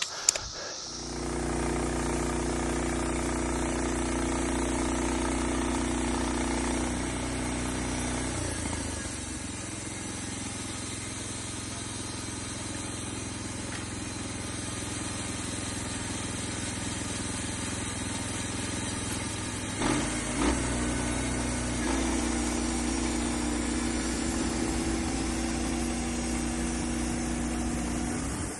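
Sawmill's small gas engine running steadily. About eight seconds in it drops to a lower, quieter speed, and about twenty-two seconds in it comes back up, just after a couple of sharp clicks.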